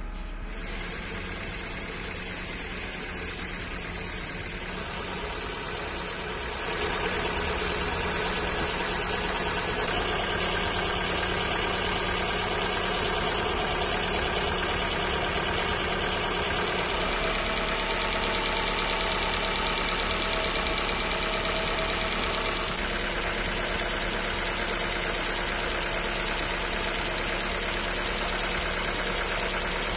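Car engine idling steadily, with a steady whine over its running; the sound grows louder about seven seconds in.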